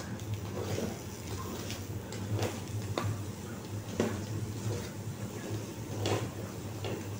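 Metal utensil stirring food in a small frying pan, scraping and clicking against the pan about seven times at uneven intervals over a steady low hum.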